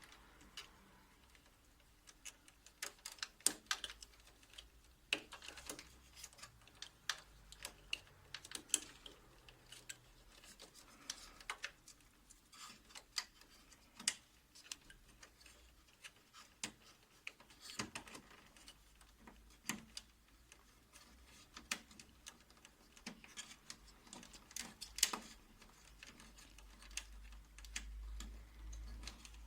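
Hands re-seating wiring inside a Toshiba 2303A copier during reassembly: scattered, irregular light clicks and plastic taps as cables are pressed back into their clips.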